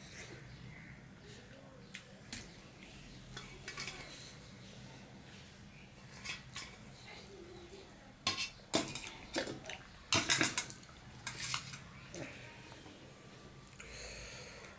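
Stainless steel bowl and plate clinking as curry is served from the bowl onto a steel plate of rice. There are scattered sharp clinks, with a cluster about eight to eleven seconds in, over a faint low hum.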